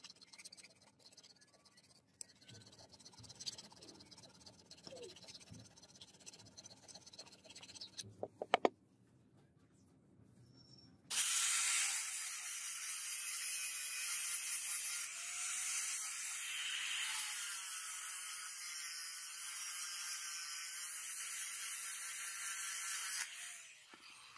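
Faint hand-filing on metal and a few sharp clicks, then an electric angle grinder with an abrasive disc grinds the metal of a cleaver's handle for about twelve seconds. It gives a loud steady hiss over a motor whine that wavers as the load changes, and it stops near the end.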